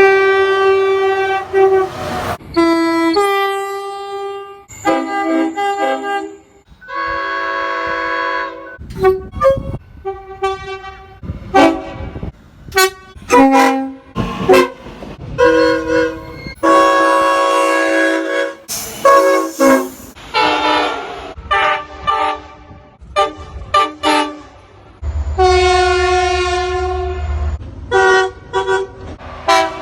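A rapid succession of railroad locomotive air horns, one clip cut straight after another: each horn sounds a chord of several notes, some as short toots and some as blasts lasting a couple of seconds. A low rumble runs under one blast near the end.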